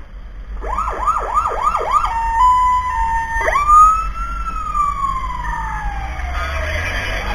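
Fire truck siren sounding: about five quick rising-and-falling whoops, then a brief steady stepped tone, then a sharp rise into a long wail that slowly falls in pitch. A low engine rumble runs underneath.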